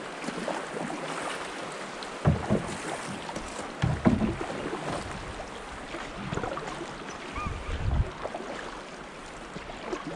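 Fast brook water rushing and lapping around an open canoe's hull as it runs downstream, with a few low thumps every couple of seconds.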